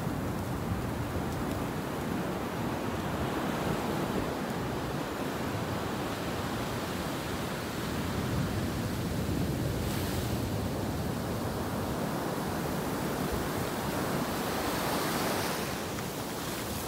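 Ocean surf breaking and washing up a sandy beach: a steady rush that swells and eases as each wave comes in.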